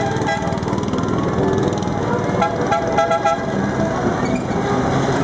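Small gasoline engines of miniature parade trucks running steadily, with a few short horn toots about two and a half to three and a half seconds in.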